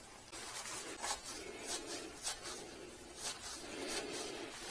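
Soft rubbing and small scattered clicks of hands working a threaded pipe fitting with thread sealant.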